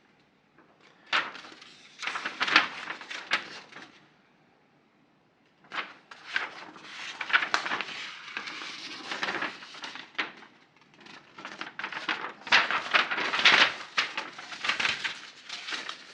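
Kit packaging being handled: plastic and paper crinkling and rustling, with sharp clicks and knocks. A burst of handling about a second in, a short lull, then nearly continuous rustling from about six seconds on.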